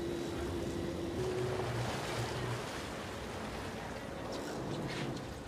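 Open-water noise from a sportfishing boat offshore: wind and water rushing, with a steady low hum underneath.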